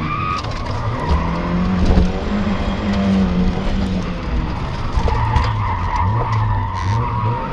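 Rally car engine running hard and revving, its pitch rising and falling, heard from inside the cabin, with the tyres skidding as the car slides through a turn. A high steady squeal comes in over the last couple of seconds.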